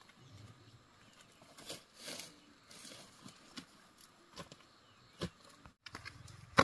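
Scattered rustling of dry leaves and light knocks from handling a bamboo pole in the undergrowth, with a few sharper knocks.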